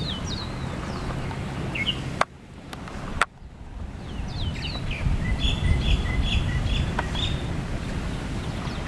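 Birds chirping in the trees, with a quick run of about six repeated call notes around the middle, over a steady low rumble. Two sharp clicks come about two and three seconds in, with a sudden quiet gap between them.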